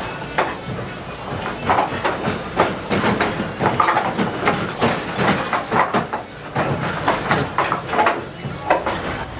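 Wooden gearwork of a mill turning: cog wheels and rope-driven shafts clacking and knocking irregularly, a few knocks a second.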